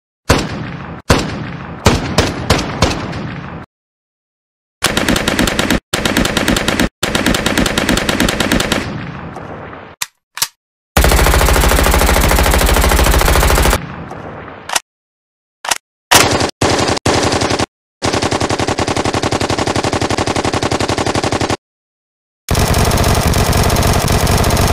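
Gunfire sound effects edited together: several single gunshots with ringing tails, then long bursts of rapid automatic machine-gun fire, each clip broken off by sudden cuts to silence.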